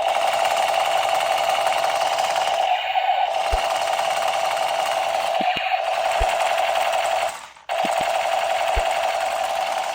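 Battery-powered toy Spider-Man gun firing its electronic rapid-fire effect, a steady buzzing rattle with one pitch running through it. It stops for a moment about seven and a half seconds in, then starts again.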